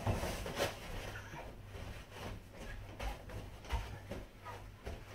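Kitchen roll rubbing over a glass shower screen as it is wiped down with glass cleaner, in quick irregular strokes with faint squeaks, over a low steady hum.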